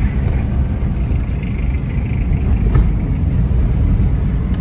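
Engine and road rumble inside the cabin of a moving car, steady, with one brief knock about three seconds in.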